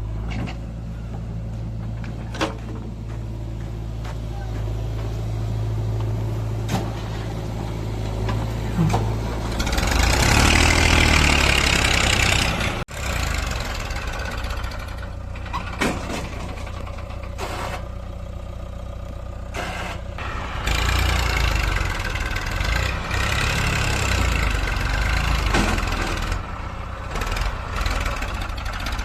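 Heavy diesel engine running at a steady idle, then revving hard for about two seconds around ten seconds in. It breaks off abruptly near thirteen seconds, then runs again and grows louder in the last third.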